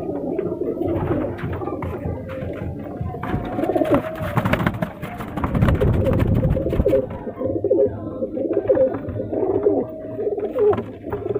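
Several Sherazi pigeons cooing in the loft. A louder burst of rustling and clatter runs from about three to seven seconds in.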